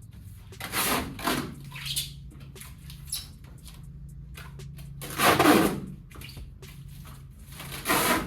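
Several short rustling, handling noises, each under a second long and the loudest about five seconds in, over a steady low hum.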